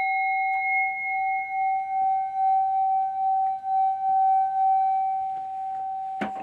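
Metal singing bowl ringing after a strike: one steady tone with fainter higher overtones, its loudness wavering as it sustains. A brief knock sounds near the end while the tone rings on.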